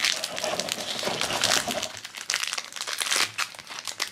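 Crinkly yellow wrapper being pulled open and crumpled by hand, crackling irregularly throughout as a small blind-bag toy figure is unwrapped.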